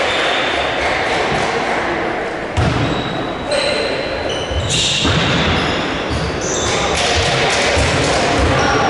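Youth basketball game in a gym: the ball bouncing on the court with dull thumps, short high squeaks, and spectators' voices in the echoing hall.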